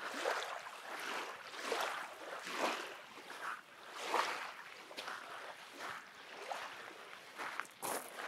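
Footsteps crunching on black volcanic sand at a steady walking pace, about one step every 0.8 seconds.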